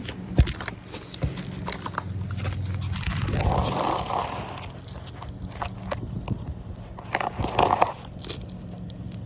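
Handling noise from a phone being moved into position: rubbing and scraping against the microphone with scattered clicks and knocks, one sharp knock about half a second in, and two longer rubbing swells, one in the middle and one near the end.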